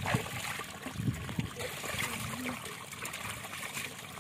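Hands splashing and sloshing in shallow muddy water, with a steady trickle of water, a few soft splashes near the start and about a second in.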